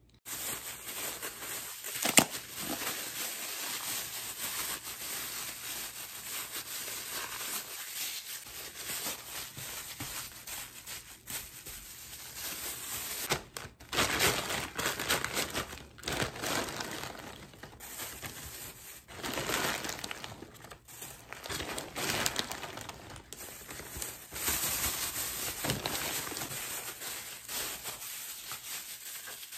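Thin plastic bags and food packaging crinkling and rustling as they are handled, with a sharp click about two seconds in; near the end the sound is hanpen fish cake being squashed and kneaded inside a plastic bag.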